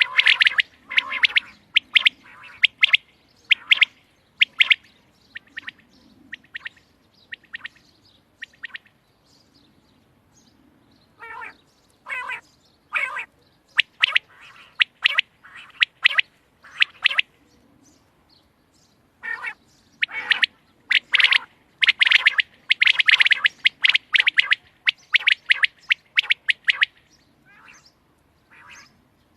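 Quail calling: runs of short, sharp repeated notes with brief pauses between runs.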